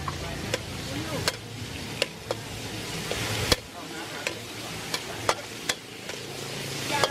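Hot oil sizzling in a steel wok as raw chicken pieces fry, with frequent sharp clinks of a metal spatula and ladle striking and scraping the wok, roughly two a second.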